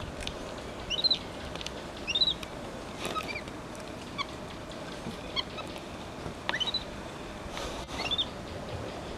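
Short high-pitched chirping calls, repeated at irregular intervals about once a second.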